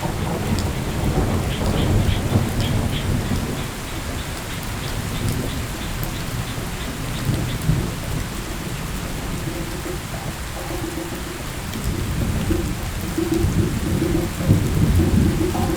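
Thunderstorm: thunder rumbling continuously under steady rain, with a few louder swells. Over the last few seconds a low tone pulses repeatedly over the storm.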